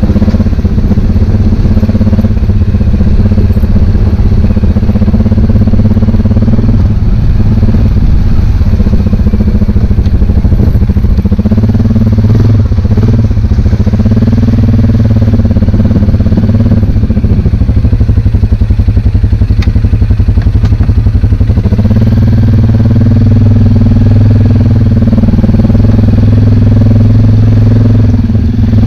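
ATV engine running steadily at low speed on a rough trail, its pitch rising and falling a few times in the middle as the throttle changes.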